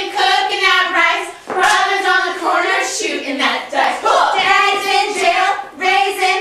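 A high voice singing in long held notes, with nothing heard beneath it in the low range.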